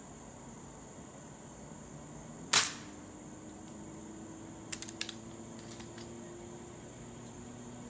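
Beeman P1 .177 spring-piston air pistol firing a single sharp shot about two and a half seconds in, followed by two short bursts of metallic clicks as the pistol is cocked and reloaded. A steady insect chirring runs underneath.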